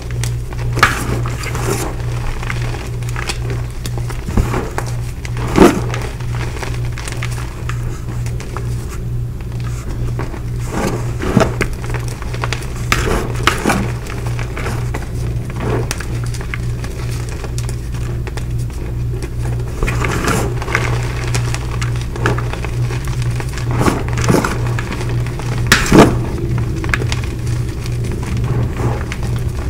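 Hands crushing and crumbling dyed gym chalk blocks into loose powder in a plastic bowl: soft crunches and crackles, with sharper crunches about six seconds in and again near the end. A steady low hum runs underneath.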